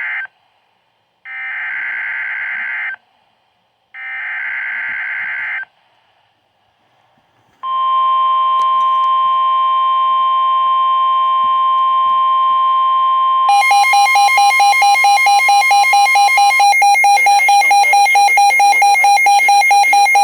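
Emergency Alert System SAME header: three short buzzing data bursts about a second apart, followed by a long steady alert tone. About halfway through, a second, louder alarm tone pulsing rapidly joins in, overlaps the steady tone for a few seconds, then carries on alone.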